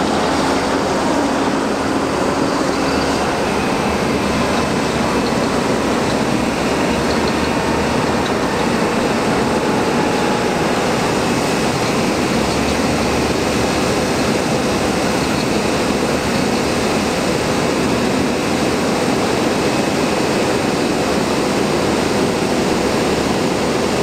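Liebherr articulated dump trucks driving by, a steady drone of diesel engines and tyre noise.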